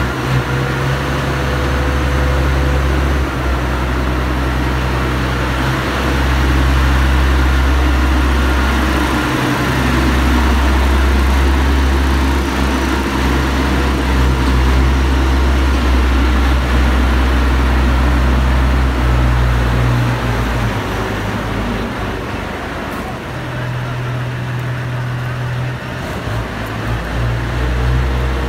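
Diesel engine of a self-propelled multi-axle modular transporter running as it creeps along under a heavy barge hull, a steady low drone. The drone thins out for several seconds past the middle and comes back near the end.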